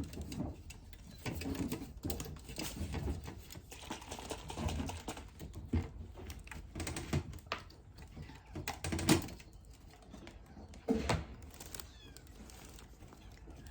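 Scattered clicks, knocks and rustling of hands handling a kitten and its feeding gear, with a faint kitten mew near the end.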